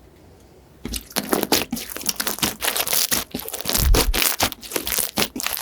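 Slime being squeezed and poked by hand close to the microphone, giving dense, irregular crackling clicks. It starts after a short quiet moment of under a second.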